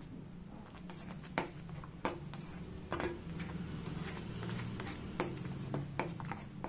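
A spoon stirring thick, nearly finished tomato ketchup in a nonstick pan, with scattered sharp clicks and scrapes of the spoon against the pan. A steady low hum runs underneath.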